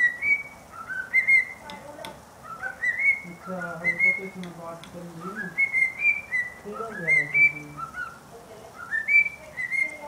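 Cockatiel whistling its song at its own reflection in a mirror: a short rising whistled phrase that climbs and levels off, repeated about once a second. Such a repeated whistled song is typical of a male cockatiel.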